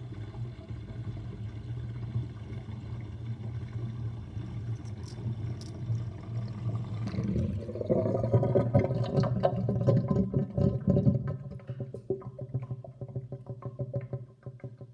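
Kitchen sink drain with a drain basket gurgling as the sink empties, its overflow covered so air can only get in through the drain: a steady humming gurgle that swells about halfway through into loud, rapid glugging, then thins into slower, weaker gulps near the end.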